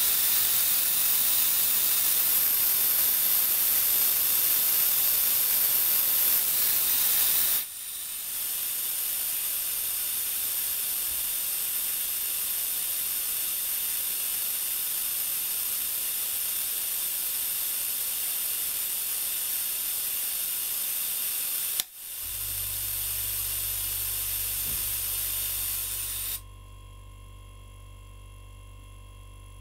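Compressed air hissing out of the compressor tank's bleed valve, loud for about 8 seconds and then quieter and steady. About 22 seconds in, the pressure switch clicks in on the falling pressure and the refrigerator compressor starts with a steady low hum; the hiss stops a few seconds later while the compressor keeps running.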